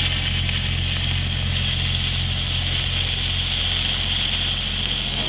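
Stick (SMAW) welding arc from an E6010/E7010 electrode burning with a steady hiss over a low electrical hum.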